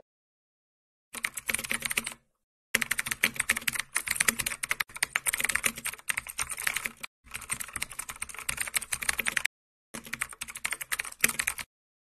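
Keyboard typing sound effect: four runs of rapid key clicks with short pauses between them, laid over text being typed onto the screen.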